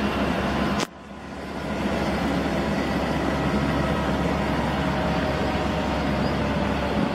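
Twin-engine MBB Bo 105 helicopter running on the ground with its rotors turning: a steady engine whine with several held tones over rotor noise. The sound drops away abruptly about a second in and swells back over the next second.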